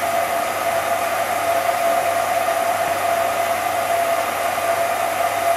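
Cine film projector running: a steady whirr of its motor and fan with a constant hum tone.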